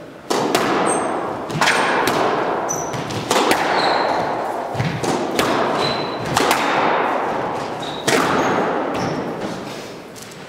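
A squash rally: sharp, echoing cracks of the ball off racquets and the court walls about once a second, starting with the serve just after the start and dying away near the end. Short high squeaks of shoes on the wooden floor come between the hits.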